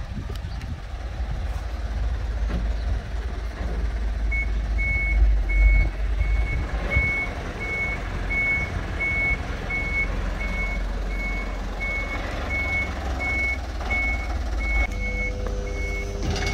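Flatbed tow truck's reversing alarm beeping steadily at about one and a half beeps a second, over the low rumble of the truck's engine; the beeping starts a few seconds in as the truck begins backing up.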